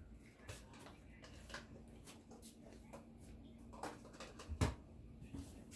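Scattered light clicks and knocks of household handling, with one louder knock a little before the end, over a faint steady hum that starts about a second and a half in.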